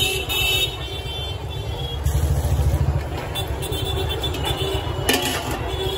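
Steady low rumble of street traffic, louder for about a second around two seconds in, with short rustling bursts as a steel bowl scoops chana from a jute sack near the start and again about five seconds in.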